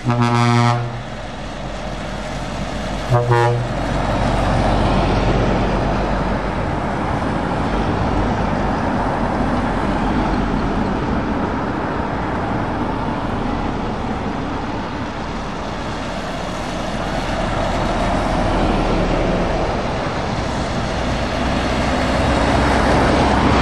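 A truck's horn sounds twice: a blast of under a second at the start and a shorter one about three seconds in. After that, a convoy of heavy lorries drives past on the wet road, their engines and tyres swelling and easing as each passes.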